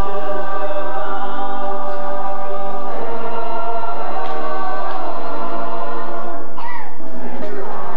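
A mixed chorus of young voices singing together in held notes, shifting to new chords about three seconds in. Near the end one voice slides down in pitch.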